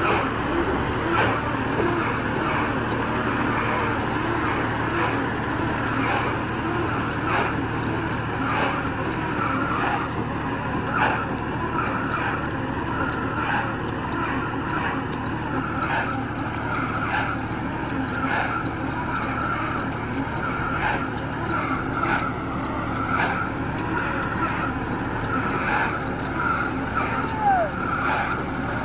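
Tractor-drawn round baler running: a steady engine hum with a rubbing squeal and a regular knock about once a second from the baling mechanism.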